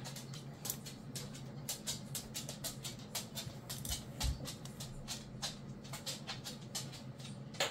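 Irregular small clicks and taps from handling a massage gun and pressing its power button, with the gun not starting. A faint steady low hum runs underneath.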